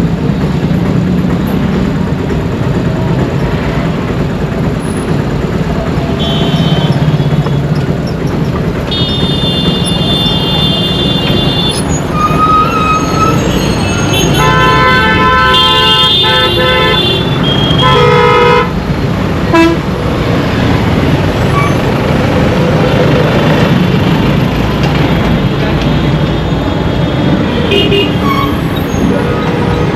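Busy Indian road traffic running steadily, with vehicle horns honking again and again. Several horns overlap in a long burst of honking about halfway through, and there are shorter honks before and after it.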